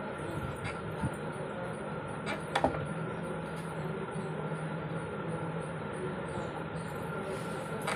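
Steady low hum of room background noise, with a few small clicks; the sharpest comes about two and a half seconds in.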